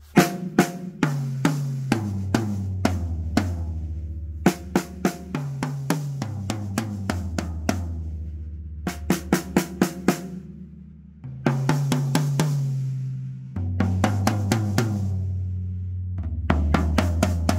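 Drum kit with newly fitted heads, Evans Black Chrome on the 10, 12 and 14-inch toms and a Remo Ambassador on the snare, played in short runs of quick strokes. Between runs the toms are left ringing with a clear pitch that steps lower from the high tom to the floor tom, with bass drum underneath.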